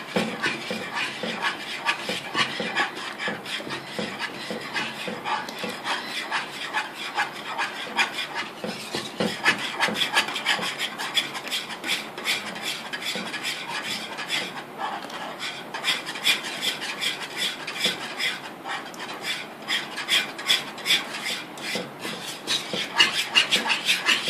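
Wire whisk scraping and clinking rapidly against the bottom and sides of a steel saucepan, stirring mango custard into hot milk as it thickens.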